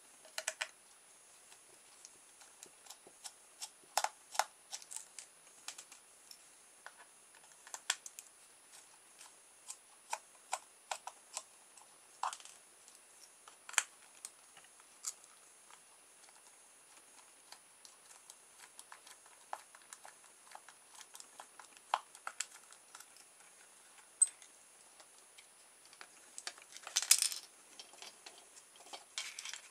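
Small handheld plastic digital stopwatch being taken apart with a jeweller's screwdriver: scattered light clicks and taps of the metal screwdriver and tiny screws against the plastic case. Near the end comes a louder, denser burst of scraping and clicking as the two halves of the case are prised apart.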